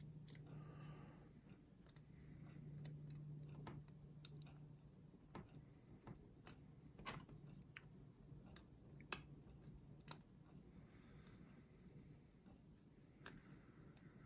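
Faint, irregular clicks and ticks of a plastic pry tool working against a smartphone's internal parts and clips as a component is prised loose, over a low steady hum. The sharpest clicks come about nine and ten seconds in.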